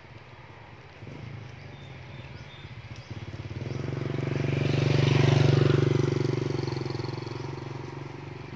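Small motorcycle engine running at a steady pitch as it passes close by, growing louder, loudest about five seconds in, then fading as it rides away.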